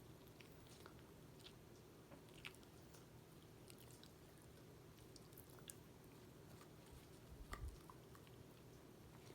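A dog chewing a treat: faint, irregular clicks of teeth and mouth, with a few low thumps about three quarters of the way through.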